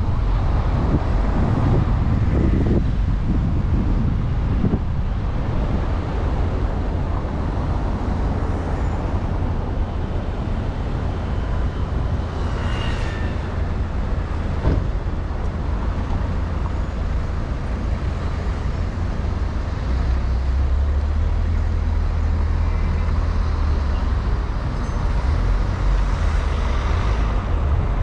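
Car driving through city traffic: a steady low rumble of engine and tyre noise. A single short knock comes about halfway through.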